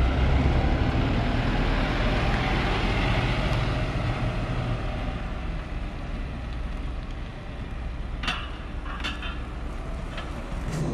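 An engine running steadily with a low hum that eases down about halfway through, and three light knocks near the end.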